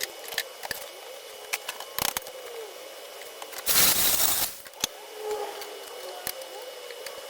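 Welder crackling in one short burst of about a second near the middle, as in a tack or plug weld on sill sheet metal. Around it are small clicks and knocks of metal and tools being handled.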